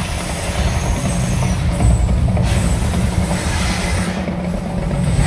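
The Mirage volcano show erupting: a loud, continuous low rumble with a hiss of noise over it, from its fire effects and show sound.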